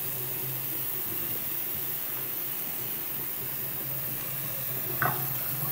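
Bathroom sink tap running steadily, its stream splashing onto a doll's hair and into the basin.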